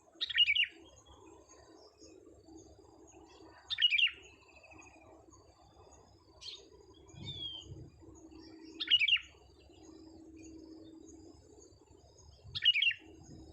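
Caged decoy bird calling: four loud, short calls a few seconds apart, each a quick run of sharp notes, with fainter chirps in between. A low, steady hum sits underneath.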